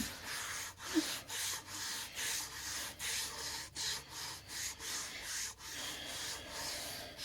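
Rhythmic back-and-forth rubbing strokes over the wet surface of a wooden cutting board, about two to three strokes a second.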